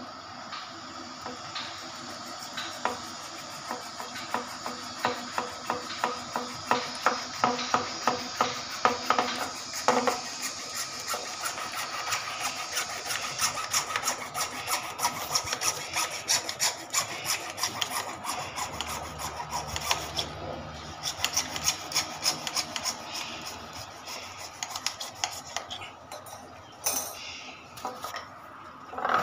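Hacksaw blade sawing through a white PVC pipe, a rasping back-and-forth at about two to three strokes a second, loudest in the first half and softer later on.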